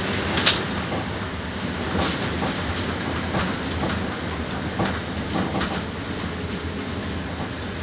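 Inside an articulated city bus under way: a steady rumble of engine and road noise, with frequent rattling knocks through the cabin and one sharp knock about half a second in.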